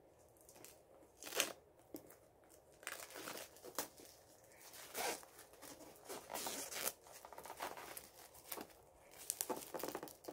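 Plastic shrink wrap being torn and peeled off a diamond painting kit package, crinkling and crackling irregularly, with a sharp rip about a second and a half in.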